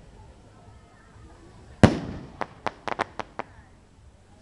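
Fireworks display: after a lull, one loud shell burst about two seconds in, echoing, followed by a quick run of about six sharp cracks.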